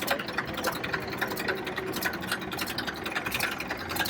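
Diesel tractor engine idling steadily with a rapid, even clatter, running on a water-diesel emulsion fuel.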